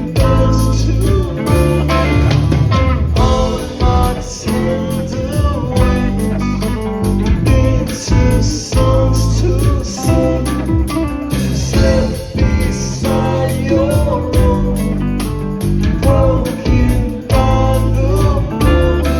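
Music: a rock song with guitar and a singing voice over a heavy bass line.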